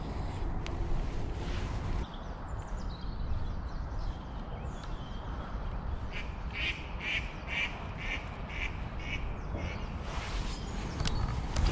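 A duck quacking, a run of about eight quacks over some three seconds, starting about halfway through.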